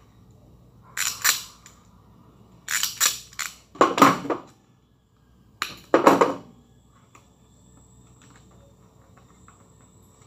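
Handling noise from wiring work inside an elevator control cabinet: several short bursts of clattering and rustling as wires and plastic parts are handled, in the first six seconds or so, then only faint ticks.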